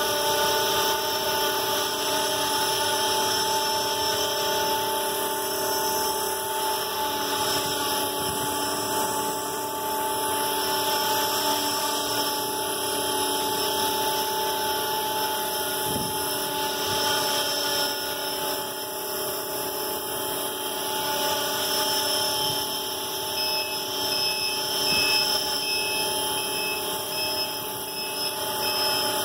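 Electric 450-size RC helicopter (Align T-Rex 450 in an Esquilo scale fuselage) hovering: the steady high whine of its brushless motor and gears with the whir of the rotor blades, holding an even pitch throughout.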